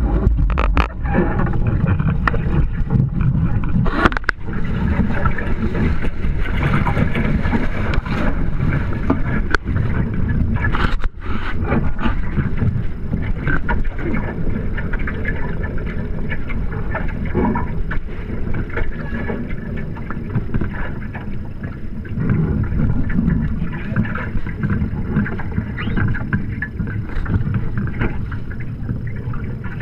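Steady rush of wind and water as a Hobie Tiger Formula 18 catamaran sails, its hulls washing through the chop, with a few brief knocks about 4 and 11 seconds in.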